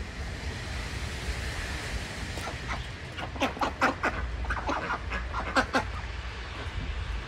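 Runner ducks and hens calling: a quick run of short calls in the middle, over a steady low rumble.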